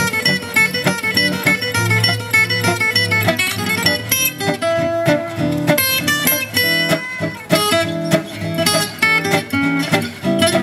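Two acoustic gypsy jazz guitars playing together in manouche jazz style, with quick runs of plucked notes over chords.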